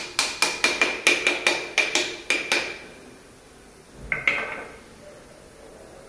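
Quick light hammer taps on a piston crown, driving the piston and its rings through a ring compressor into a cylinder bore of a Toyota 1GR-FE V6 block. There are about a dozen taps in the first two and a half seconds, each with a metallic ring, then a single ringing metallic clink about four seconds in.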